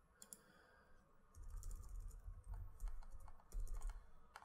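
Computer keyboard typing: a couple of single clicks, then from about a second and a half in a quick run of keystrokes as text in a search box is cleared and entered.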